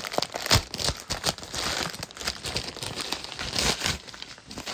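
Mailing package being opened by hand: packaging crinkling and tearing, with irregular crackles and rustles.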